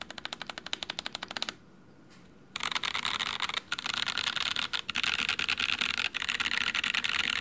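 Mechanical keyboard with Boba U4T tactile switches and cherry-profile keycaps being typed on fast: a rapid run of keystrokes, a pause of about a second, then a dense flurry of typing with brief breaks.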